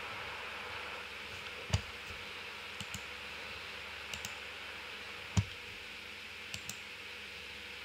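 Computer mouse clicking: two sharp louder clicks, about a second and a half in and again about five and a half seconds in, with lighter double ticks between, over a steady faint hiss.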